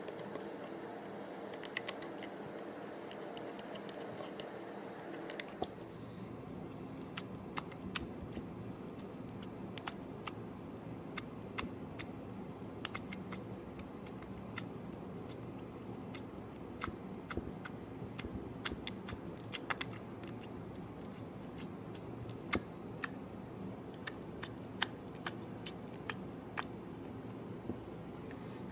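Slime being handled, with many irregular sharp clicks and small pops over a steady low hum.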